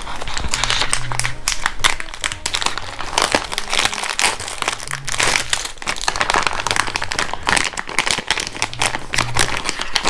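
Plastic packaging bag of a Daiso Petit Block kit crinkling and rustling continuously as it is opened and handled, with the inner bag and instruction sheet pulled out.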